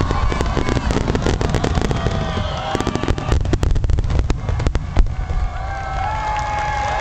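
Fireworks going off: dense runs of rapid crackling pops, thickest in the middle, with one sharp bang about five seconds in.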